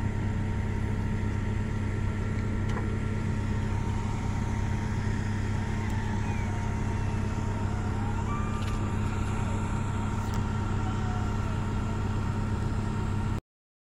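Steady low hum of idling vehicle engines, with a few faint high glides over it; cuts off suddenly near the end.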